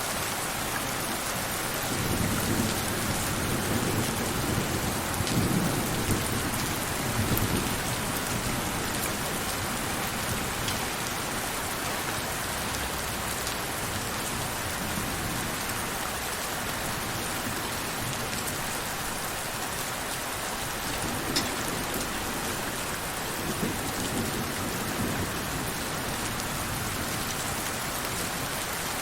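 Steady rain falling, an even hiss throughout, with thunder rumbling low from about two to eight seconds in and again, more faintly, past the twenty-second mark.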